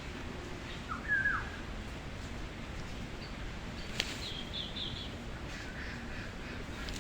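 Birds calling over a steady background hiss: one short, loud call about a second in, then a quick run of higher chirps a little past the middle. A single sharp click comes just before the chirps.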